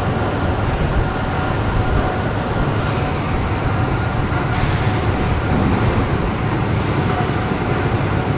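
Steady industrial machinery noise: a dense, even rumble with a faint high whine held throughout and no separate hammer blows.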